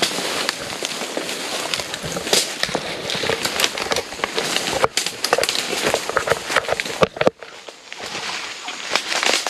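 Dry leaves and twigs crunching and rustling underfoot and against undergrowth as people push through dense forest, a steady stream of irregular crackles. A little after seven seconds it cuts off abruptly to a quieter hiss.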